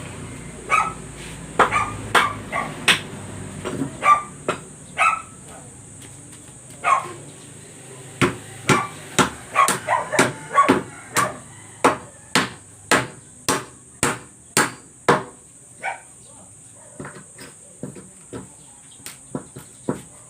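Hammering: sharp hammer blows, irregular at first, then a steady run of about two strikes a second from about eight seconds in, growing fainter and sparser towards the end. A steady high insect drone runs underneath.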